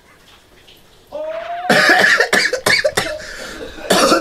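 A man's voice in loud, choppy bursts, starting a little under two seconds in.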